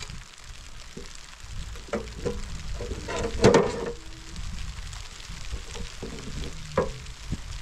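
Rocks being set into a metal wheelbarrow, knocking and scraping against each other and the steel pan. There are a few knocks, the loudest cluster about halfway through and another single knock near the end.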